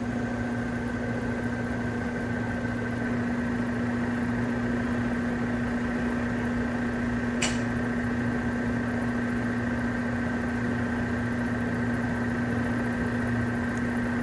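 Outdoor central air-conditioner condenser unit running just after power-up, its newly replaced condenser fan motor spinning the fan: a steady hum over an even rush of air, with one short click about halfway through. The fan is turning but blowing the wrong direction.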